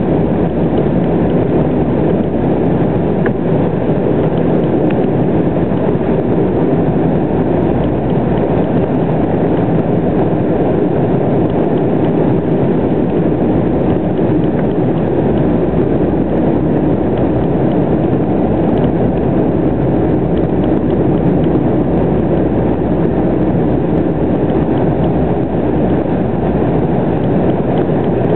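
Steady cabin noise inside an Embraer ERJ-195 jet airliner on its landing approach: the even, low noise of its wing-mounted GE CF34-10E turbofan engines and the airflow past the fuselage, unchanging throughout.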